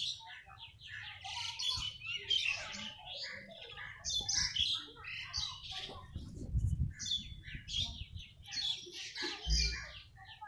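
Small birds chirping and twittering, many short overlapping calls in quick succession. Two low bumps, about six and a half and nine and a half seconds in.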